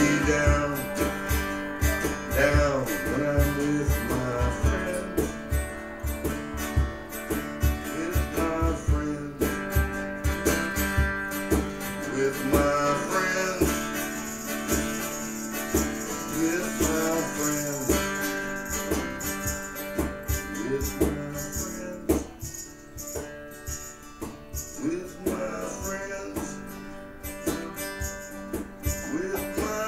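Live band music with guitar over a steady beat.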